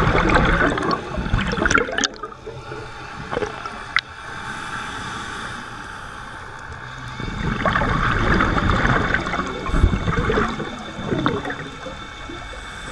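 Scuba regulator exhaust bubbling past the underwater camera in two exhaled breaths: one at the start lasting about two seconds, and a longer one from about halfway. A few sharp clicks fall in the quieter stretch between them.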